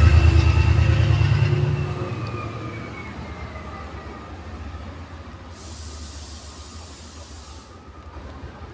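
Class 68 diesel-electric locomotive running loudly as it passes, then fading as it pulls away. A whine falls in pitch over the first few seconds. A brief high hiss comes about six seconds in.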